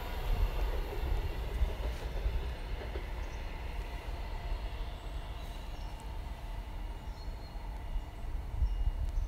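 A train receding along the line: a low rumble with rail noise that has fallen away from its loudest just before and runs on steadily, with faint whining tones dying out over the first few seconds.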